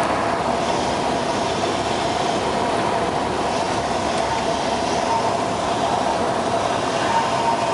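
Single-engine light plane's piston engine and propeller running steadily, heard inside the cabin with rushing air, at low power as the plane lands and rolls down the runway.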